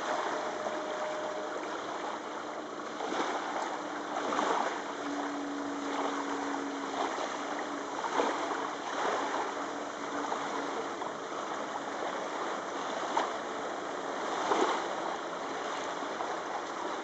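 Steady rushing of river water and wind, with short surges, and the faint drone of an ultralight floatplane's engine as it comes in over the river to land on its floats.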